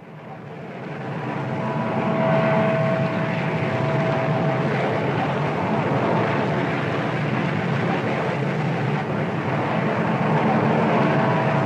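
Science-fiction machine sound effect from a Toho film: a steady mechanical drone that swells in over the first two seconds and then holds. A thin high tone sits on top of it for a couple of seconds, drops away, and returns near the end.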